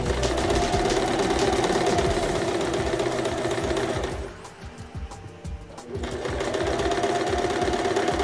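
Domestic electric sewing machine running steadily, sewing a straight-stitch seam in cotton fabric. It stops about four seconds in, pauses for roughly two seconds, then starts stitching again.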